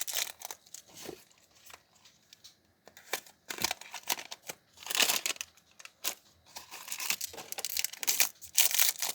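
Packaging of a gummy candy pack being handled and torn open by hand: intermittent crinkling and rustling with small clicks, in short clusters.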